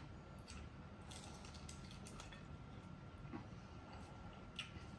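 Faint sounds of eating by hand from a plate: a few scattered light clicks and taps, the sharpest about four and a half seconds in, over a low steady hum.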